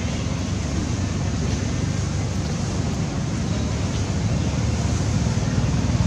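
Wind buffeting the microphone outdoors, a steady rumbling rush with no distinct sound events.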